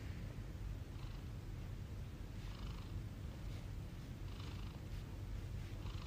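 A British Shorthair cat purring steadily close by, a low, even purr with soft breaths about once a second.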